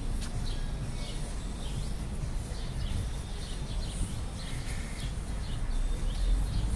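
Small birds chirping in short, repeated calls over a steady low outdoor rumble.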